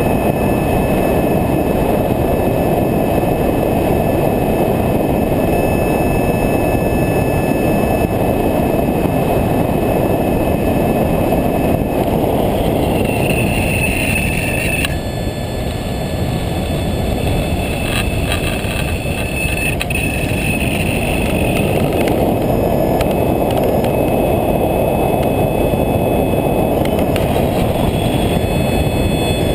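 Onboard sound of a radio-controlled model plane in flight: steady wind rush over the camera with a thin high whine from the motor and propeller. About halfway through the whine shifts in pitch and the sound is a little quieter for several seconds.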